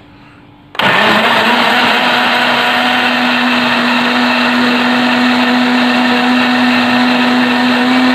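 Electric kitchen blender switched on about a second in, then running steadily with a constant hum as it purées red grapes and water into juice.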